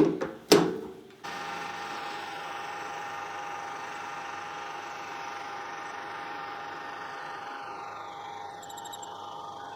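Optimum TU3008G metal lathe running with a steady whine, machining a boss from round stock. It comes in abruptly about a second in, after two short knocks.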